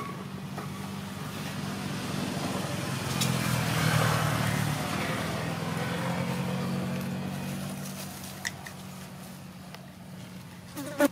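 A motor vehicle's engine running, growing louder to a peak about four seconds in and then slowly fading, as if passing by. A sharp click at the start and a short knock near the end.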